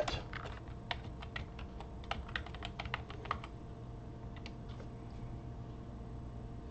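Typing on a computer keyboard: a quick run of light, irregular key clicks for about three and a half seconds, then a few scattered taps.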